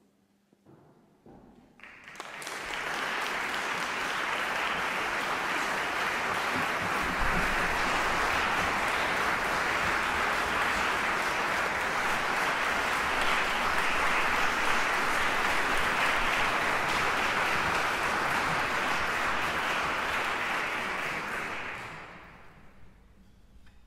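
Concert audience applauding, a steady dense clapping that swells in about two seconds in and dies away near the end.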